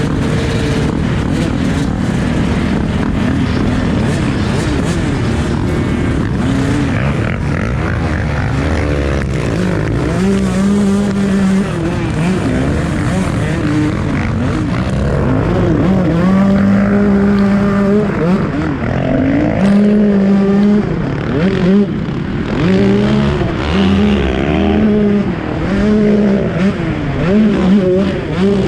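KTM 125 SX single-cylinder two-stroke engine running under riding, its pitch repeatedly rising, holding and dropping as it revs up and comes off the throttle, on a bike the owner says is misfiring and bogging.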